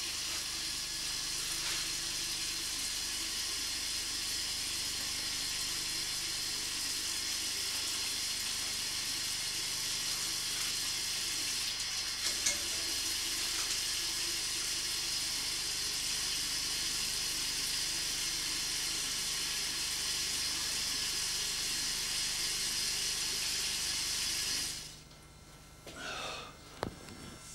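Water running steadily from a bathroom tap into a washbasin, stopping near the end.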